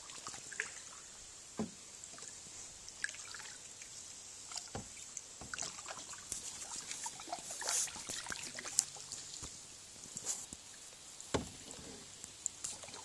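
A canoe sitting quietly on still water, with scattered light knocks and clicks from the hull and paddle, a few seconds apart, over a faint steady high hiss.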